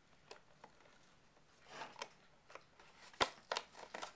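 A cardboard doll box with a clear plastic window being handled and opened slowly by hand: scattered faint clicks, taps and crinkles, with a sharper click about three seconds in.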